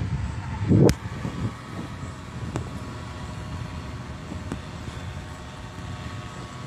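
Paramotor engine running steadily at idle on the pilot's back, with a loud short thump about a second in.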